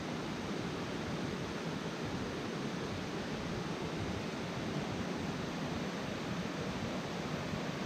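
A creek running: a steady, even rush of flowing water.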